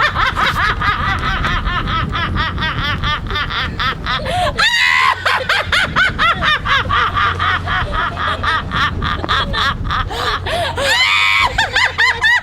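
Contest giggling: one person laughing in a fast, continuous run of short high giggles, with brief breaks and two higher squeals about five and eleven seconds in.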